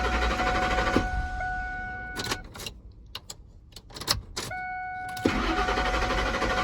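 A 2003 Ford F-150 being cranked twice on a newly programmed transponder key: each time a steady electronic tone sounds, then the starter turns the engine over with a low rumble for a couple of seconds, with quieter clicking between the two tries. The older truck is slow to recognise the new key.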